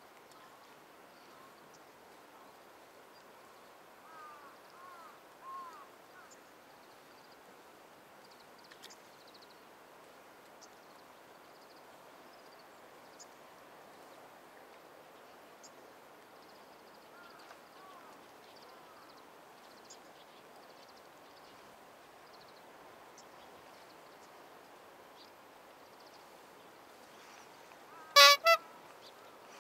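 Steady low outdoor background with a few faint chirps about four to six seconds in, then two short, loud pitched blasts in quick succession near the end, like a horn's toots.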